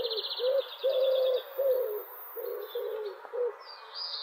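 A pigeon cooing: a run of short, low, wavering notes, about three a second, with small birds chirping and trilling higher up.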